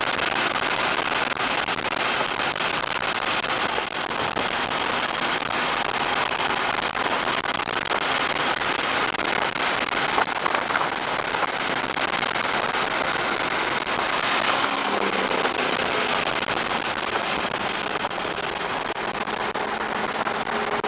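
A 2007 Porsche Cayman S lapping a race track, heard from inside the cabin: a steady, dense rush of engine, wind and tyre noise, with the flat-six's tone showing faintly through it in the last third.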